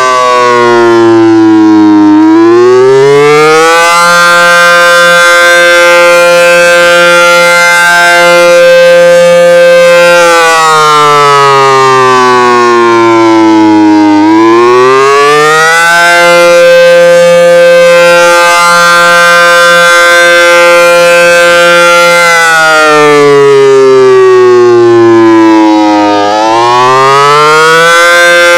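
Federal Signal SD10 electromechanical warning siren sounding the attack signal, loud. Its pitch winds up, holds high for about six seconds, then slides down over about four, in a slow rise-and-fall cycle that repeats about every twelve seconds.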